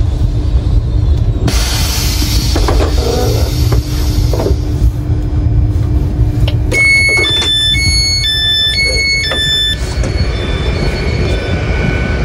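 A train's passenger door being worked from its push button: a hiss sets in about a second and a half in, then a door warning of short two-note beeps sounds for about three seconds, over a steady low rumble and hum.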